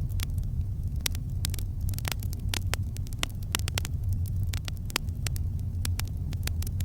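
Campfire crackling: irregular sharp pops and snaps, several a second, over a steady low rumble of the burning fire.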